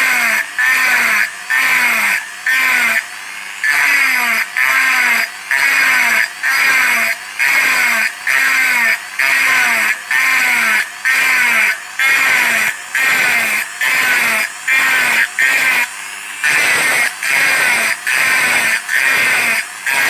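A small handheld power engraving tool working metal in short, regular bursts, about one and a half a second, each one starting and stopping sharply.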